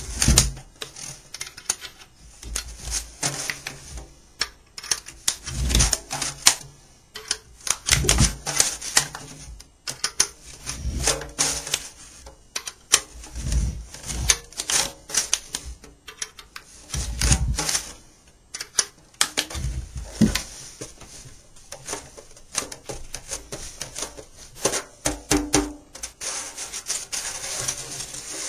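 Irregular metal clicks and taps from a small wrench turning the bracket nuts on a banjo rim as the new skin head is drawn down, with duller handling bumps against the rim and head.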